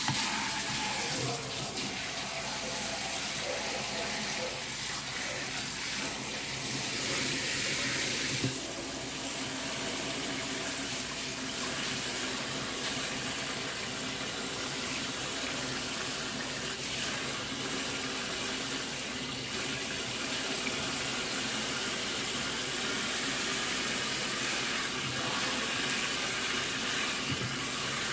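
Kitchen faucet running into a stainless steel sink, the water splashing through a mesh strainer while hands rub watermelon seeds clean under it. The steady rush drops a little about eight seconds in.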